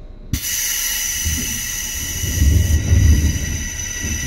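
Seibu 2000-series electric train: a sudden click and then a loud, steady hiss of compressed air, with low rumbling rising in the middle.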